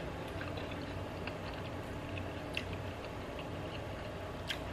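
Soft chewing of a bite of hearts of palm close to the microphone: small, scattered mouth clicks over a low steady hum.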